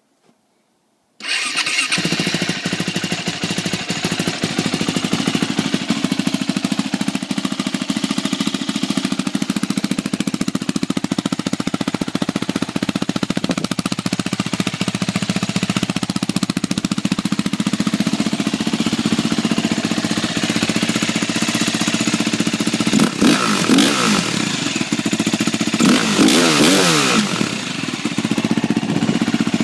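A 2008 KTM 450 SX-F's single-cylinder four-stroke engine cold-starting: it catches suddenly about a second in and settles into a steady idle. Near the end the throttle is blipped twice, the revs rising and falling each time.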